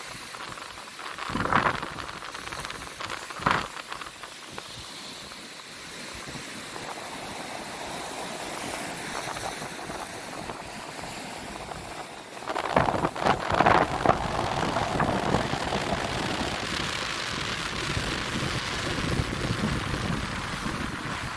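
Sea surf washing onto a sandy beach under gusty wind that buffets the microphone, with sudden gusts and heavier, rumbling wind noise from about halfway in.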